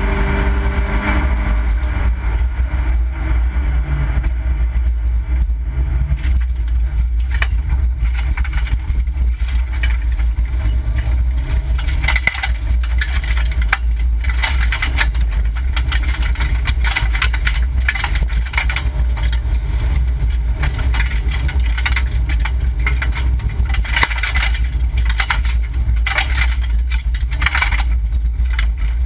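Inside the cabin of an Opel Corsa B rally car at speed: the engine running under a heavy low rumble. From several seconds in, stones and gravel clatter repeatedly against the underside and wheel arches.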